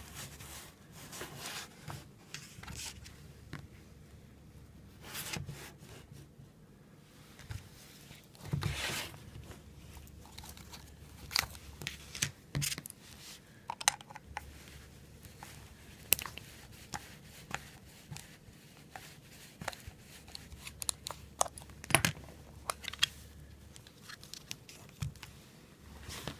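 Small items being handled by hand: scattered sharp clicks, brief scrapes and rustles, with no chime sounding.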